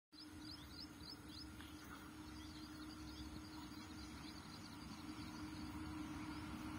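Birds chirping in quick runs of high, downward-sliding notes over a faint, steady low rumble and hum that slowly grows louder: a train approaching in the distance.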